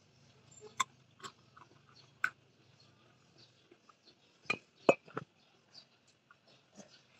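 Scattered sharp clicks and taps of someone eating at a table with fresh guava: a few single clicks in the first couple of seconds, then three louder ones in quick succession about halfway through.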